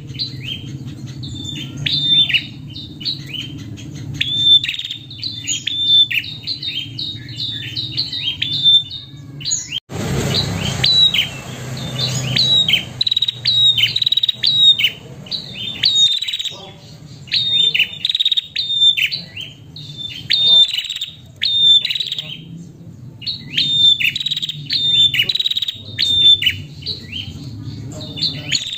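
Female prenjak calling in rapid runs of short, sharp, high chirps, with brief pauses between runs. A burst of hiss comes about ten seconds in, and a steady low hum lies underneath.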